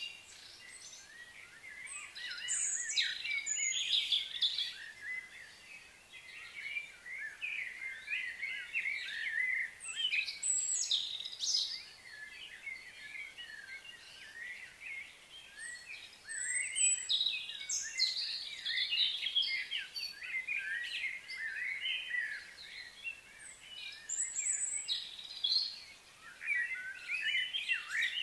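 Birds chirping and calling in overlapping bouts of quick high notes, coming and going every few seconds over a faint steady outdoor hiss.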